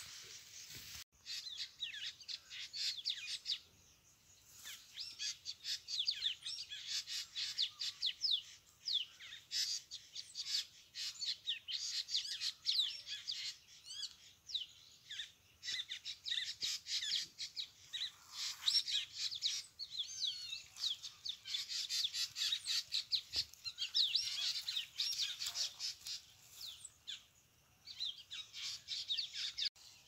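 Many small songbirds chirping and twittering at once: a dense chorus of rapid, high chirps that drops out briefly about a second in and eases off twice, around four seconds in and near the end.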